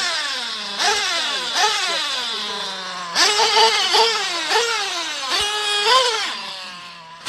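Nitro RC buggy's small two-stroke glow engine being blipped on the stand with its wheels off the ground: about eight quick revs that shoot up to a high whine and fall back to idle, one held a little longer about three seconds in, as the engine is warmed up.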